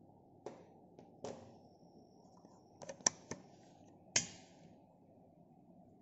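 A few short, sharp clicks as the excess end of the lens's thin flex ribbon cable is cut. One comes about half a second in, one just after a second, a quick cluster around three seconds, and the loudest just after four seconds with a brief hiss.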